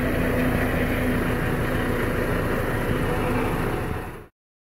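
Tractor engine running steadily while a rear straw-collector blade pushes through a heap of straw; the sound fades out about four seconds in.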